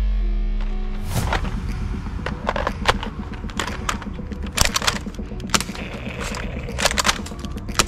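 Toy M16-style blaster firing: a fast mechanical rattle with sharp cracks every second or so.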